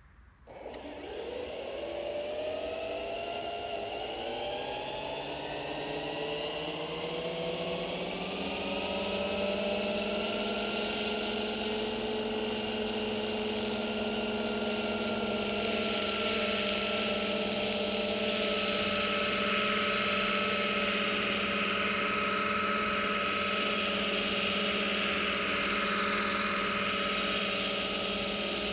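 Electric motor and rotor of a radio-controlled scale Agusta A109 helicopter spinning up from rest: a whine that rises in pitch for about ten seconds, then holds steady at flying speed. Near the end the model lifts off the ground into a hover.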